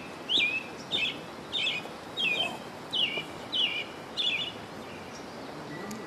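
A bird calling one short note over and over, about one and a half calls a second, each note jumping up sharply in pitch and then falling, over steady background hiss; the calls stop about four seconds in.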